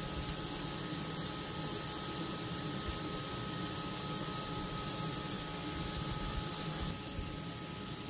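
A steady machine hum with a low rumble and faint high whining tones; the highest whine shifts and the middle tone fades out about seven seconds in.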